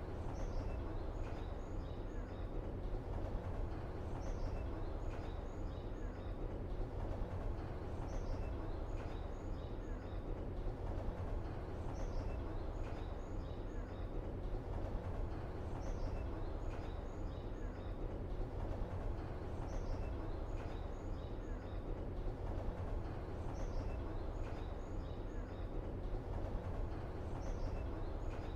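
Steady low rumble of background ambience with clusters of short, high, bird-like chirps that repeat in the same pattern about every four seconds, as in a looped ambience track.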